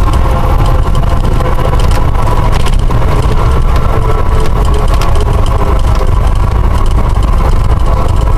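Cessna 172's piston engine and propeller running steadily, heard loud from inside the cockpit as the plane rolls along the runway, with a deep rumble and scattered short clicks.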